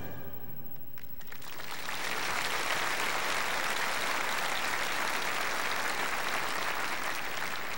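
Large audience applauding, the clapping building over the first couple of seconds and easing off near the end.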